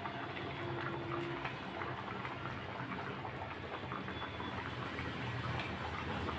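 Spinach and vegetable curry boiling in a metal kadai: a steady, busy bubbling and popping of the simmering gravy.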